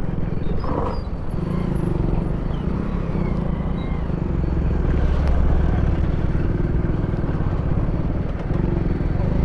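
Motorcycle engine running steadily while being ridden along a road, a little louder about halfway through.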